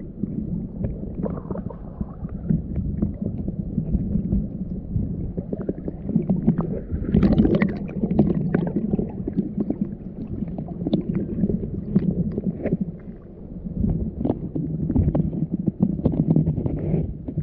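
Water heard underwater through a GoPro's waterproof housing: a low, muffled wash of moving water with scattered clicks and taps.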